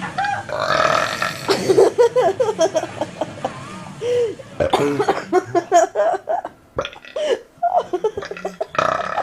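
A person burping over and over in a long run of loud belches, with a short break about four and a half seconds in.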